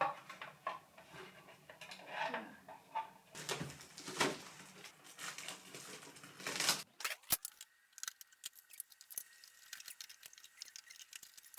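Small kitchen utensils and their packaging being handled: irregular clicks, clinks and rustles. About seven seconds in the sound changes abruptly to a quieter background with a faint steady high tone and scattered sharp ticks.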